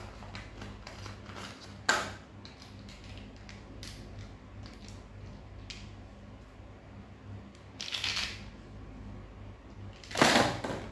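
Plastic candy-shaped highlighters clicking and tapping against each other as they are handled and taken from a crinkling clear plastic bag. There is a sharp click about two seconds in, and louder rustling near eight seconds and again just after ten.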